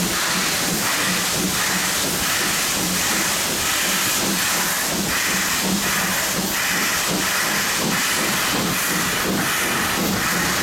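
A railway train running, with a steady hiss and a regular beat about three times every two seconds.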